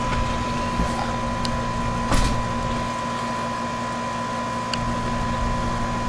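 Outdoor condensing unit of a central air conditioner running: a steady hum from the compressor and condenser fan, with a thin steady high tone over it and a light click about two seconds in.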